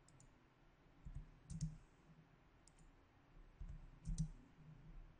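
Computer mouse clicking about nine times, faint and sharp, several of them in quick double clicks, as guidelines are placed in a 3D modelling program.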